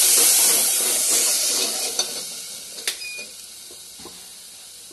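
Water poured into hot oil and spice masala sizzling loudly in a metal pot, the hiss dying down over about three seconds as the water boils off. A spoon knocks against the pot twice near the middle.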